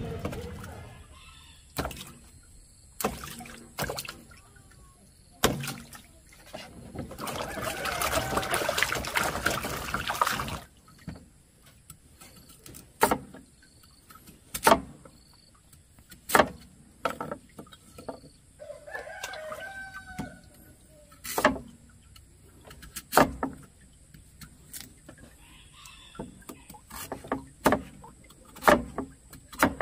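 A rooster crowing, with a long call about eight seconds in and a shorter call around twenty seconds, over sharp knocks that come every second or two.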